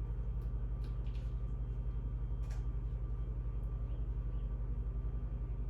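A steady low mechanical hum that pulses in a fast, even rhythm, with a few faint clicks over it.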